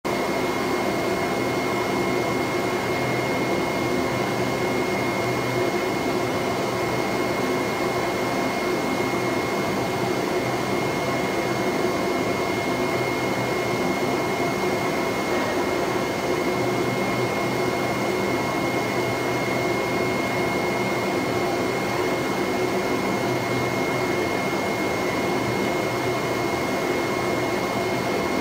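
AOKE CNC flatbed cutting plotter running as it kiss-cuts a printed vinyl sticker sheet: a steady machine drone with a constant high whine over it, from the vacuum hold-down bed's blower and the moving cutting head.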